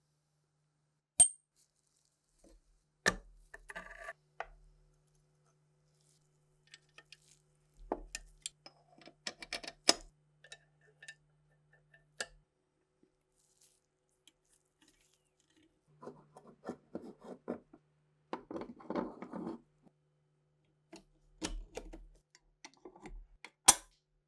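Steel parts of a STEN Mk2 submachine gun clicking and clinking as they are fitted together by hand: several sharp single clicks and a few short runs of light metallic rattling.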